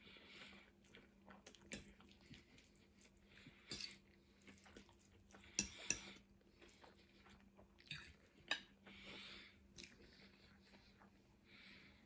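Faint close-miked chewing, with soft crunches and small clicks of mouth and cutlery as food is eaten. The sharpest clicks come about halfway through.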